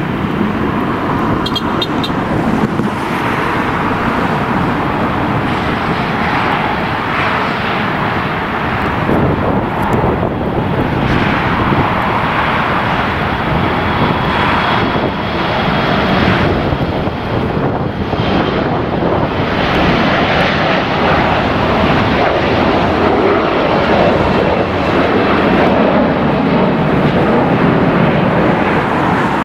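Jet airliner engines heard as a loud, steady rushing noise, with a faint high whine for a few seconds midway.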